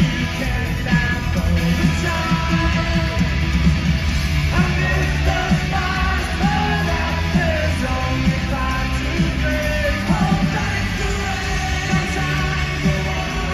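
Live pop-rock band with drums, bass, guitar and keyboards playing under a male lead singer, heard from the audience in an arena.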